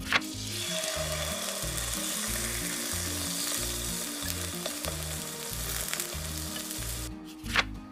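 Beef striploin steak sizzling loudly as it sears in hot oil in a stainless-steel frying pan on high heat, starting just after a sharp click as it is laid in. The sizzle stops shortly before a second sharp click near the end.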